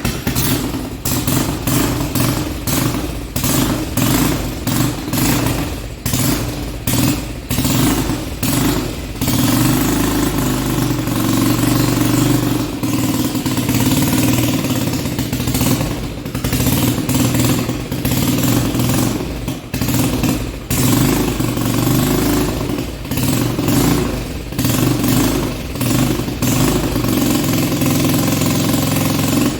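Freshly rebuilt four-wheeler engine catching right at the start and running, with rapid stutters for about the first ten seconds before it settles into a steady run. Its carburetor is being adjusted because the engine is getting too little fuel.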